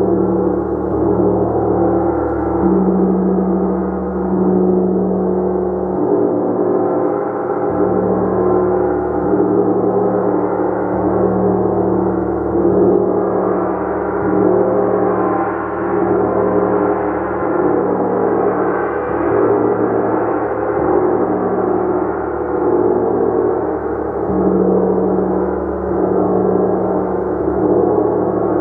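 Gong played continuously, a dense, sustained shimmering wash of overlapping tones that swells and eases gently without distinct separate strikes.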